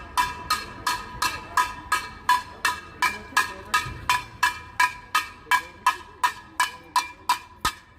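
A steady run of ringing metallic strikes, about three a second, each with a clear bell-like pitch that dies away before the next.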